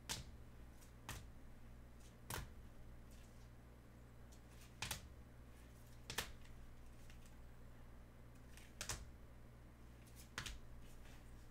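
Faint, irregular clicks and clacks of rigid plastic card holders being handled and swapped, about seven in all, over a low steady hum.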